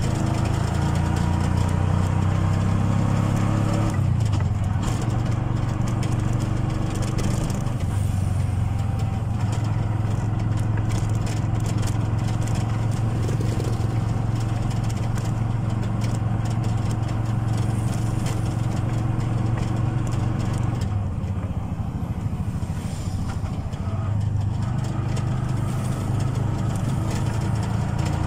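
Bajaj motorcycle tricycle's engine running steadily as it drives along. Its low note weakens for a few seconds about three quarters of the way through, then comes back.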